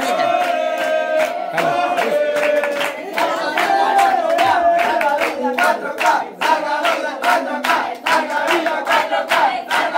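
A crowd singing or chanting together, with rhythmic hand clapping that comes in strongly about halfway through and keeps a steady beat.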